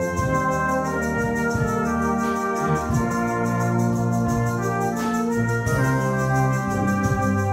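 Brass band of cornets, flugelhorn, tenor horns, baritone, euphoniums, trombones and basses playing long held chords that shift every few seconds.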